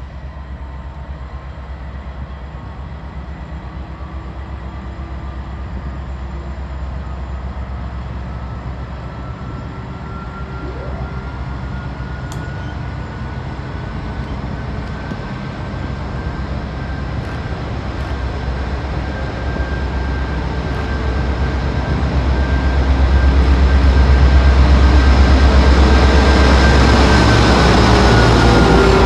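Diesel-electric locomotives hauling an intermodal freight train approach along the platform. Their low engine rumble grows louder until the lead locomotive draws alongside about two-thirds of the way through. A thin whine holds steady, then drops in pitch near the end as the locomotive passes.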